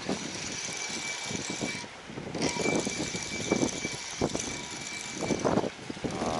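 Shimano Ultegra 5000-size spinning reel being cranked to wind in line: a steady mechanical whir with a thin high whine. It stops for about half a second about a third of the way in, resumes, and stops shortly before the end.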